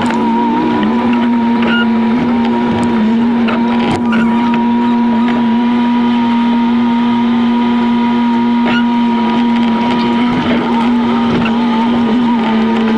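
Jeep engine sound sped up sixfold by time-lapse, heard as a steady, even drone with a few short knocks from the vehicle working over the trail.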